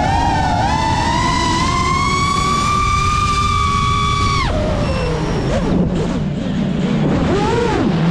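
FPV racing quadcopter's motors whining, the pitch climbing and holding high, then dropping away suddenly about halfway through, wavering lower and starting to rise again at the very end as the throttle changes.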